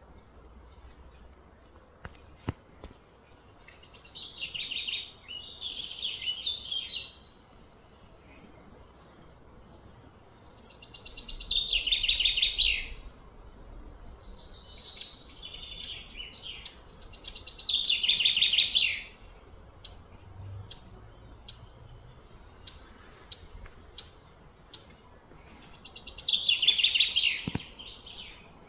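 A bird singing: about four loud phrases of rapid high notes, each lasting a couple of seconds and falling in pitch, several seconds apart, with fainter chirps in between.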